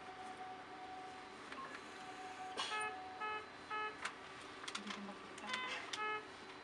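An electronic alarm beeping: a faint steady tone, then a group of three short beeps about three seconds in and another group near the end, with a few light clicks between them.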